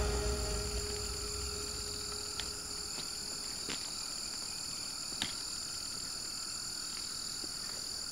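Night insects chirping in a steady, high-pitched chorus, while music fades out in the first second. A few faint ticks sound now and then.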